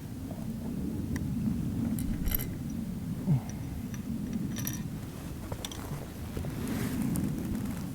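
Steady low wind rumble with a few light metallic clinks and ticks, two of them ringing briefly, from small metal gear being handled at the firing point.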